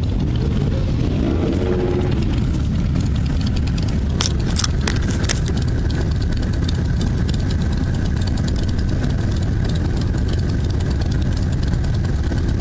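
Motorcycles running in a group ride, a steady low rumble with a brief rev about one to two seconds in. A few sharp clicks come about four to five seconds in.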